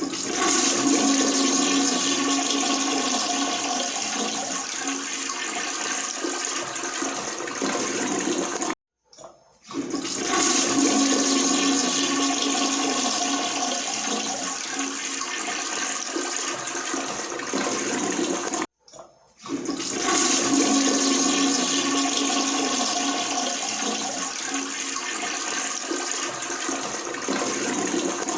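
Toilet flushing three times in a row: each flush is a loud rush and swirl of water lasting about nine seconds, starting suddenly, easing off slightly, then cutting off abruptly before the next one begins.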